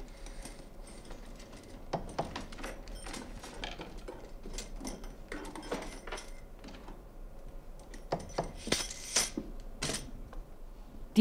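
Steel scissor halves clinking and rattling against each other as they are handled in bundles and threaded onto metal rods. Irregular light clinks throughout, with a busier run of clinks about three quarters of the way through.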